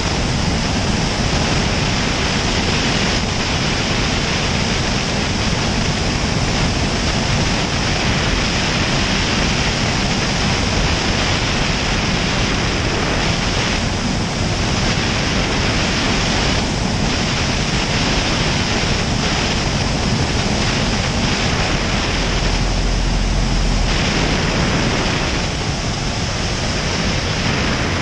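Heavy airflow rushing over an external camera under the wing of a Cessna 172 Skyhawk, with the steady drone of its engine and propeller underneath. A brief deep rumble comes about 23 seconds in.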